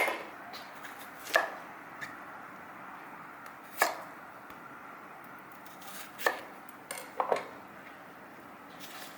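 Knife cutting a cucumber against a cutting board: about six separate chops, spaced one to two and a half seconds apart, with the last two in quick succession.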